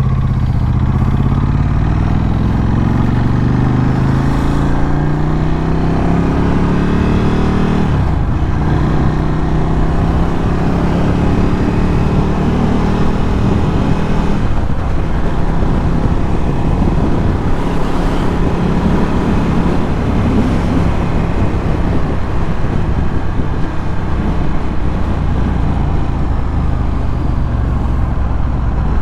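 Ducati Scrambler 1100's air-cooled L-twin engine through a Termignoni exhaust, pulling up through the revs in one gear for about eight seconds. It shifts up and climbs again, then settles into a steadier cruise.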